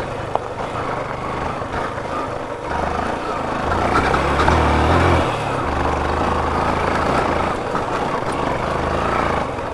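Yamaha FZ motorcycle engine running as the bike is ridden, its note rising briefly about four to five seconds in, over a steady rushing noise.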